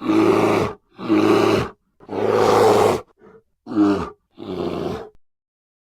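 Bear growling: five growls in a row, the third the longest, ending about five seconds in.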